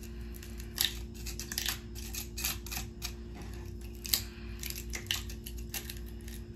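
Fingers picking and scraping at jagged splintered wood and dried glue on a metal bed-rail bracket: a string of small irregular clicks and crackles, the loudest about a second in and about four seconds in, over a faint steady hum.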